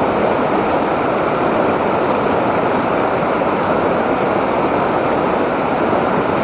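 Mountain river rushing over rocks in shallow rapids: a loud, steady rushing of water.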